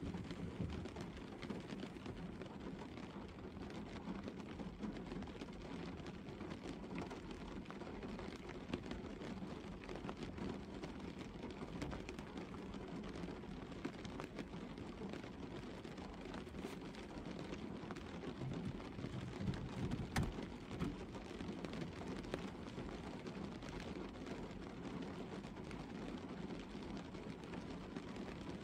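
Steady gentle rain falling on a car's roof and bonnet, heard from inside the car as an even, somewhat muffled patter with a few louder drops.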